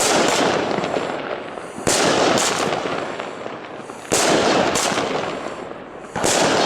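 Small Albert Funke 7-shot F2 consumer firework battery firing, one shot about every two seconds: four sudden bangs, each trailing off in a fading crackle.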